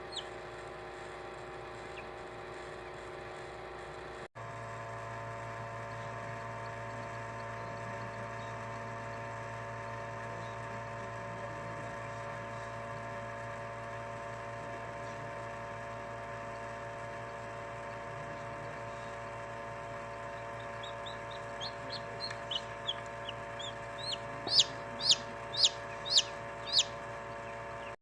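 Newly hatched chicks peeping, a run of short high peeps that grows louder near the end, over the steady hum of an egg incubator.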